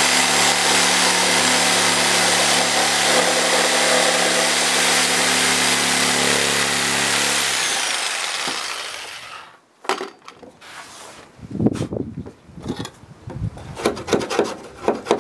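Corded reciprocating saw with a short wood blade running steadily as it cuts through the end of a decking board, then winding down about eight seconds in. Irregular scraping and rubbing strokes of a hand tool in the cut seam follow.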